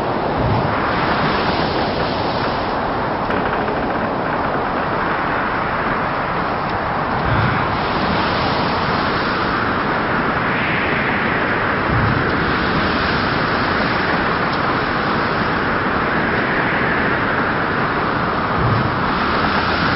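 Storm at sea sound effect: a continuous, loud rush of wind and rough waves, with gusts that rise and fall in pitch and a few low thuds of waves breaking.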